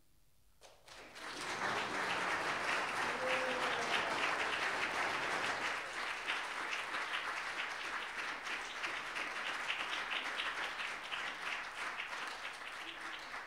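Audience applauding: many people clapping, starting suddenly about a second in and thinning out near the end.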